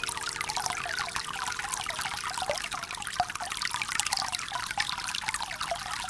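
Aquarium water trickling and splashing steadily, a dense patter of small drops and bubbles.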